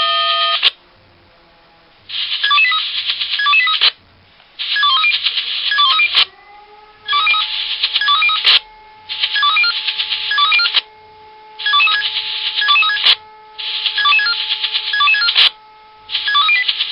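Swissphone Quattro 96 pager sounding its alert during a test alarm. A steady chord cuts off under a second in, followed by about seven loud bursts of rapid beeping melody, each one and a half to two seconds long with short pauses between. A faint siren winds up about six seconds in, holds a steady tone and begins to wind down near the end.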